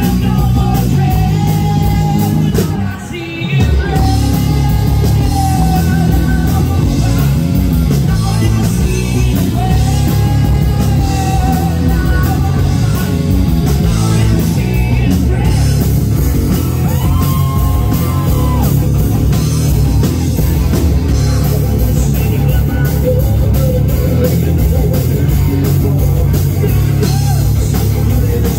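Live rock band playing loudly: a male lead singer over drums and guitar. The music breaks off briefly about three seconds in, then comes back in.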